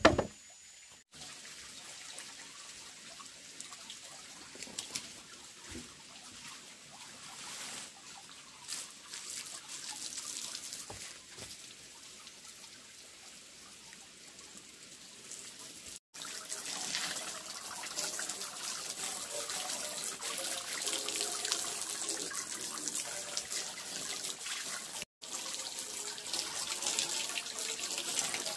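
Water from a garden hose spraying and splashing onto a floor of bamboo slats, a steady hiss that starts about halfway in and is briefly broken near the end. Before it there are only faint knocks and handling sounds.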